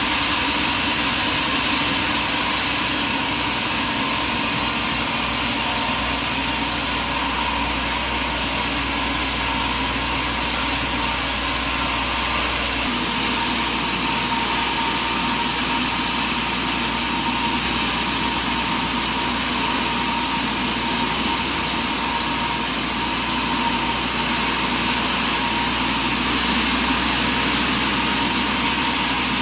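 Sawmill engine running steadily, with a thin steady whine over the engine noise.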